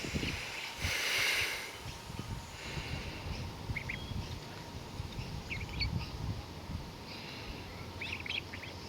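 Five-week-old ducklings peeping: a few short, high, rising peeps scattered through, with a quick cluster near the end, over a low rumbling background.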